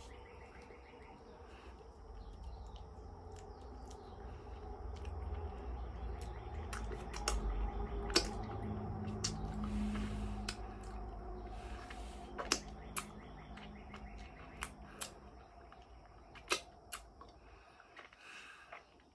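Close-up mouth sounds of a person eating soft durian flesh: scattered wet smacks and clicks of the lips and tongue as he chews and sucks the fruit off his fingers. A low rumble swells in the middle.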